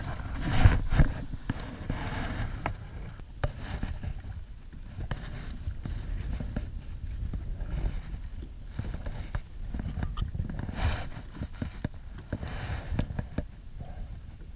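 Wind rumbling on the microphone and water lapping around a kayak, with one loud splash about a second in as a released summer flounder (fluke) is dropped back into the water.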